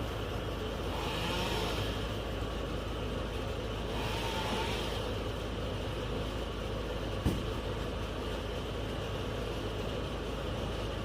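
A steady low engine drone, with two brief swells of hissing noise about one and a half and four and a half seconds in, and a single sharp knock a little past the middle.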